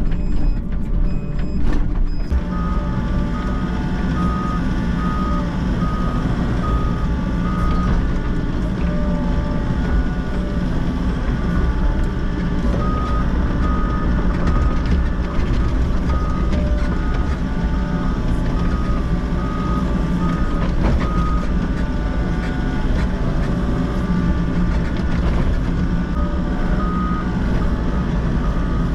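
Volvo excavator's diesel engine and hydraulics running steadily under load while the bucket digs a trench, heard from the cab. An electronic alarm beeps over it in short, evenly repeated pulses, on and off in several stretches.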